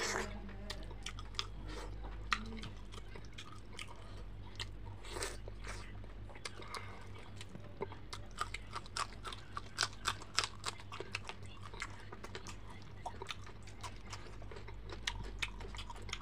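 Close-up eating sounds: chewing and crunchy bites of fried fish, with a run of sharp crunches about halfway through as a raw green chilli is bitten. A low steady hum sits underneath.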